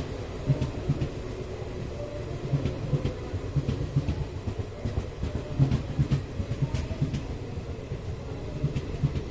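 Passenger train running on rails: a steady low rumble with irregular clunks and clicks of the wheels and coaches.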